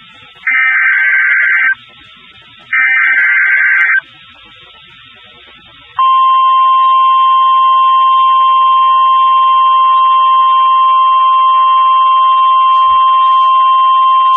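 NOAA Weather Radio EAS alert: the last two bursts of the SAME digital header, each a harsh screech about a second long, a second apart. After a pause of about two seconds, the steady 1050 Hz weather radio warning alarm tone comes on and holds.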